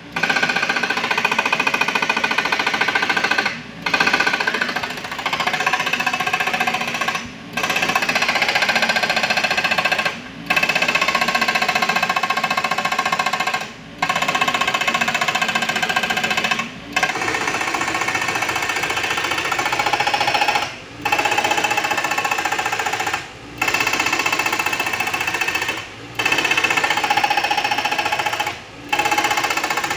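Hydraulic breaker on a Komatsu PC78US mini excavator hammering rock in rapid blows, in runs of about three seconds broken by short pauses.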